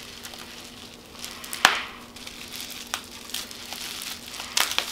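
Plastic bubble wrap being handled and peeled off a small item, crinkling and crackling irregularly, with one sharp snap about a second and a half in and a quick flurry of crackles near the end.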